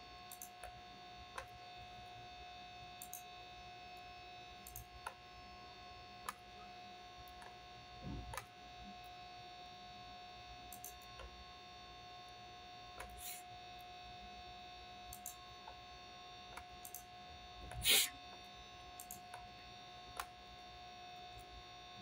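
Steady electrical hum made of several fixed tones, with scattered soft clicks from a computer mouse and keyboard as objects are selected and moved. About 18 seconds in there is one louder brief thump.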